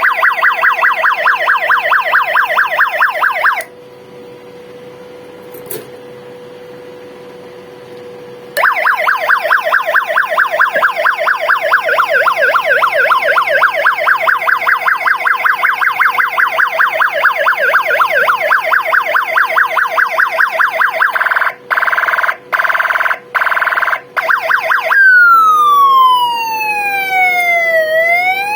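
UM3561 siren-generator circuit sounding through a loudspeaker as its sound is switched. It plays a fast repeating warble that stops about three and a half seconds in, and returns after a gap of about five seconds with only a faint steady hum. After about thirteen seconds of warble come a few seconds of steady tones cut by short breaks, then a slow siren wail that falls and rises again near the end.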